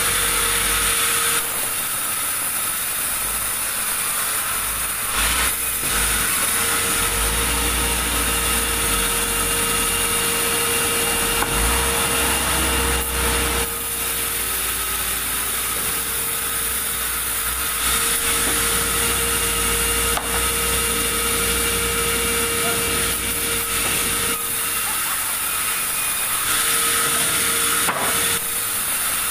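Sawmill saw running and cutting through wood: a constant whine over a rasping hiss, with a low rumble that comes and goes.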